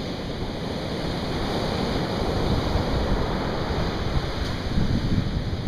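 Ocean surf breaking and washing up the beach, a steady rush, with wind rumbling on the microphone.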